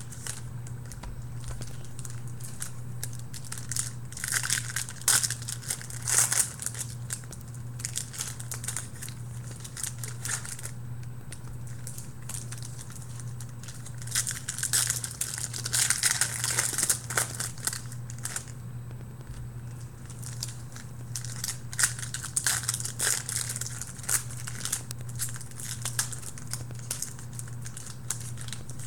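Foil trading-card pack wrapper crinkling and cards rustling as they are handled, in irregular bursts over a steady low hum.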